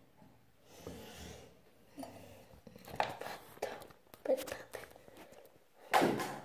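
Close handling noises: rustling with a series of short knocks and clatters, the loudest about six seconds in.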